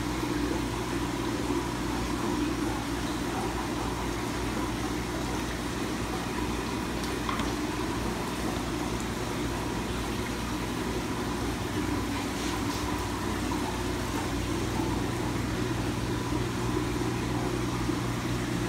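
Steady drone of aquarium pumps and circulating water, with a low hum underneath.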